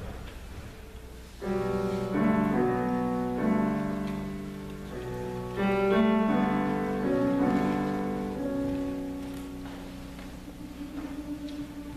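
Girls' choir singing sustained, overlapping chords, with new entries about a second and a half in and again near the middle, voices sliding between some notes; one note is held steadily toward the end.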